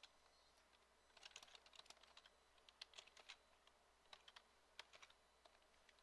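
Faint computer keyboard typing: quick keystroke clicks in short runs with brief pauses between them.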